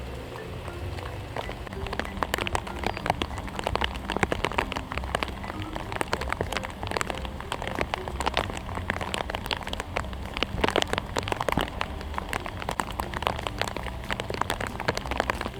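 Rain pattering on a hard surface: a dense, irregular patter of drops over a steady low rumble.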